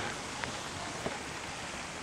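Steady outdoor hiss with two faint clicks, about half a second and a second in.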